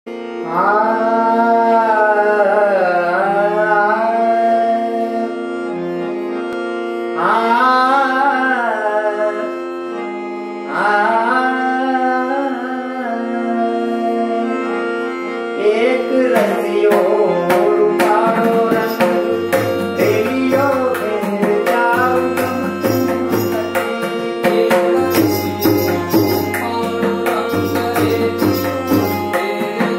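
A man sings the opening lines of a Gujarati song in three long, gliding phrases over a steady harmonium drone. About 16 s in, the tabla enters with quick, crisp strokes, and from about 19 s its bass drum adds deep repeated booms as harmonium and tabla play on together.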